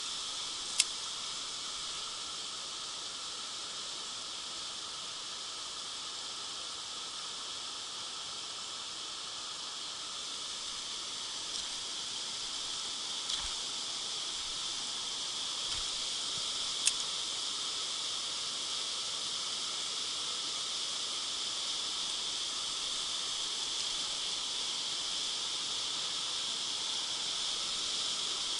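Steady high-pitched hiss of riverbank ambience, with a sharp click about a second in and another a little past halfway.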